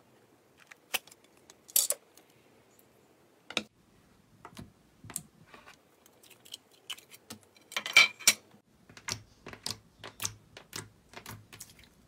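Sharp, irregular clicks and taps of fingernails and plastic on a clear plastic heart-shaped slime tub as it is handled and opened, loudest in a quick cluster about eight seconds in.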